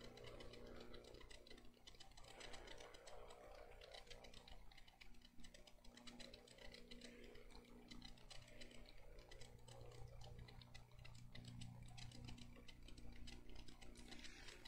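Near silence: room tone with a steady low electrical hum and many faint, irregular light ticks.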